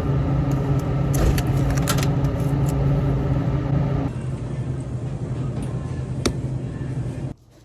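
A car running steadily, a low engine hum with road rumble and a few light clicks; it eases a little about four seconds in and cuts off abruptly near the end.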